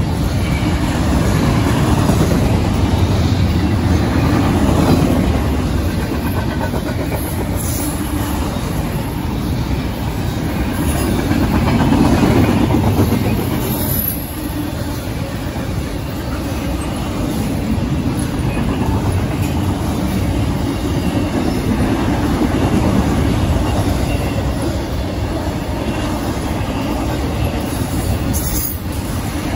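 Intermodal freight train of container well cars rolling past close by: steel wheels running steadily on the rails, swelling and easing slightly as the cars go by.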